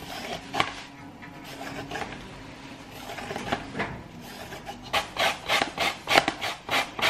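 Carrots being peeled with a hand vegetable peeler, a few separate scraping strokes. From about five seconds in, a carrot is grated on a metal box grater in quick, regular scraping strokes, about three a second.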